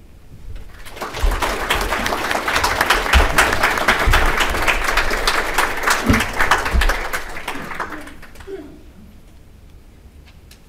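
Audience applauding, swelling up about a second in and dying away near the end.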